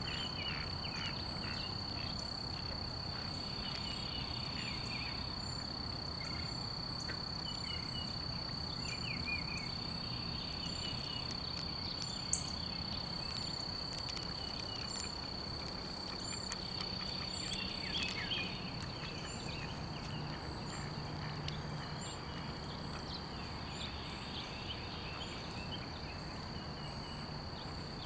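A steady high-pitched insect trill over low background noise, with scattered short chirps and a few faint clicks.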